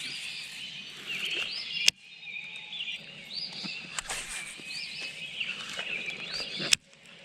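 Songbirds singing, repeating short arched chirps and warbled phrases, with two sharp clicks, one about two seconds in and one near the end.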